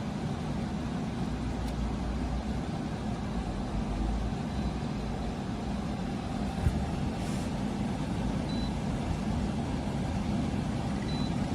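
DORTALA 10000 BTU portable air conditioner running in cooling mode: a steady hum and rush of its compressor and fan. There is a single brief click about two-thirds of the way through.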